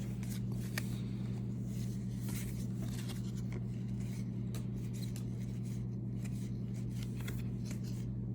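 Trading cards being handled and flipped through by hand, with light rustles and small ticks, over a steady low hum.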